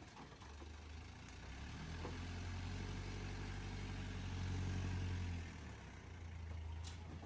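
An engine running steadily, growing louder about two seconds in and loudest around four to five seconds before easing back.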